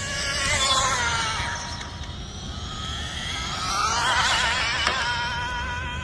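Brushless electric RC car's motor and drivetrain whining at speed. It is loudest about a second in and again around four seconds, where the pitch wavers up and down, then settles to a steady high whine.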